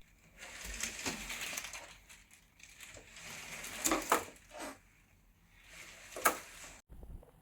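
Crinkling, crushing handling noise in several short stretches, with a few sharp clicks or knocks; the loudest click comes near the end.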